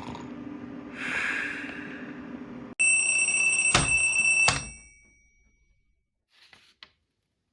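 A loud, steady, high electronic tone like an alarm, held for under two seconds with two sharp clicks during it. It follows a low hum with a swelling hiss.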